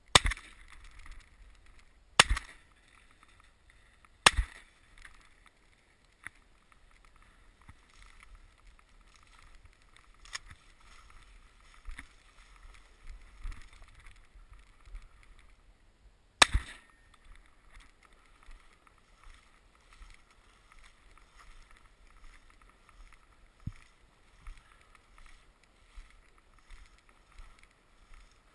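Shotgun shots at close range: three in quick succession about two seconds apart at the start, then a fourth about twelve seconds later, each a sharp crack with a short ring after. Between the shots only faint background noise.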